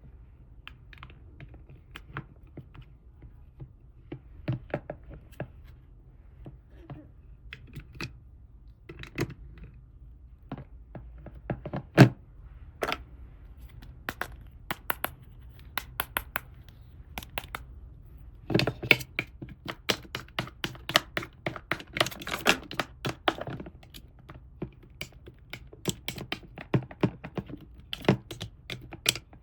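Small plastic toy pieces being handled and set down: irregular clicks and taps, busier for a few seconds past the middle, with one sharp knock about twelve seconds in.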